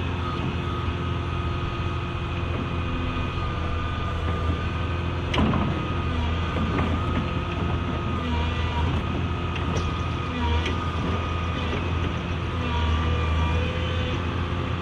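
Volvo tracked excavator's diesel engine running steadily with a wavering hydraulic whine as the arm and bucket move, and a single sharp knock about five seconds in.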